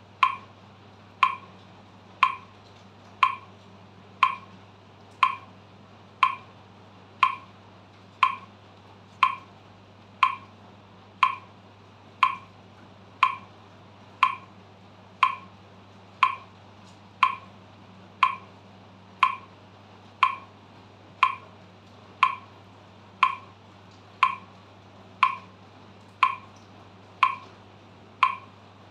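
Metronome ticking at 60 beats per minute, one short, even click every second, over a faint steady low hum.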